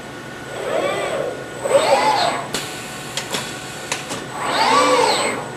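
Fanuc industrial robot arm's servo motors whining as the arm moves, three whines one after another, each rising and then falling in pitch as an axis speeds up and slows down. A few sharp clicks come between the second and third whines.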